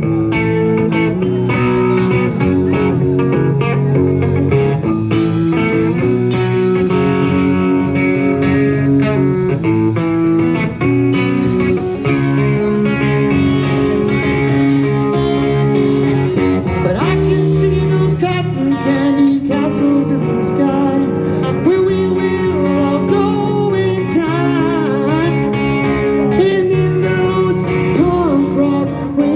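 Live rock band playing, with guitar prominent over bass and drums. Sustained, bending notes fill the second half.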